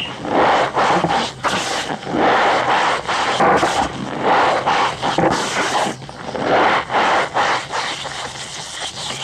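Cornstarch powder being pressed and squeezed, giving squeaky, crunchy scrapes in irregular bursts with short gaps between them.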